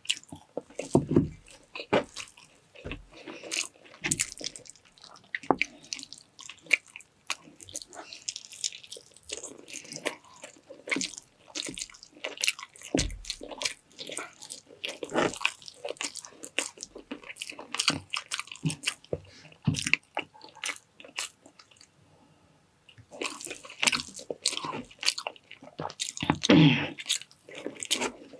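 Close-miked eating sounds: a person biting and chewing food in quick, irregular smacks and crunches, with a brief pause about three-quarters of the way through.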